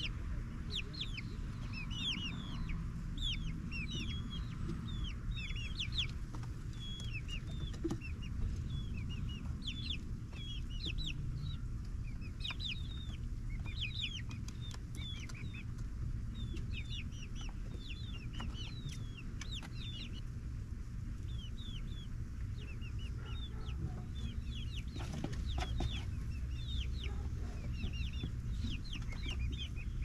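A small flock of young chickens, about eight weeks old (Barred Rock, Ameraucana and ISA Brown pullets), peeping and cheeping continuously in many short, high, falling chirps over a steady low rumble.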